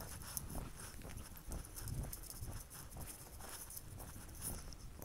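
Footsteps walking along a dry dirt trail through dead grass, a steady walking rhythm of soft scuffs with a light high rustle over it.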